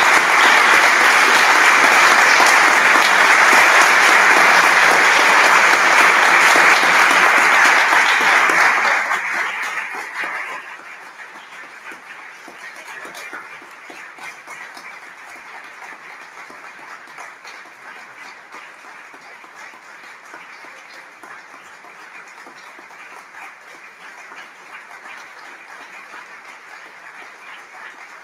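Audience applause, loud and even for about nine seconds, then dying away to faint room noise.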